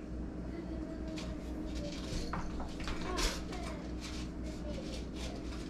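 Kitchen background: faint voices in the room and a few light knocks and clatter of tableware over a steady low hum.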